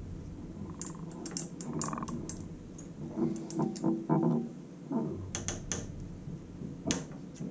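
Irregular light clicks and taps of a hex key and fingers working the set screws on a bandsaw's roller guide assembly, as its tightness is checked. A few sharper clicks stand out just after five seconds and near seven seconds.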